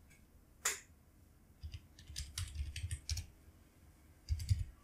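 Computer keyboard typing in short bursts. There is a single keystroke just under a second in, a quick run of keystrokes from about one and a half to three seconds, and a few more near the end.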